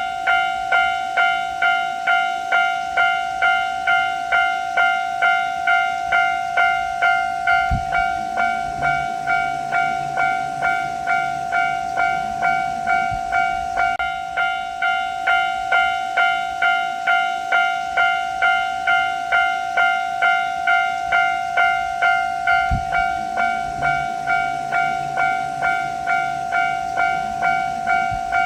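Japanese railway level-crossing warning bell ringing steadily, about two strikes a second, each strike a ringing tone that dies away.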